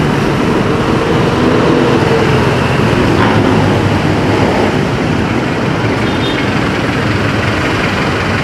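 Road traffic noise heard from a motorcycle waiting in traffic: nearby vehicle engines running steadily, with one engine's pitch easing down over the first two seconds or so.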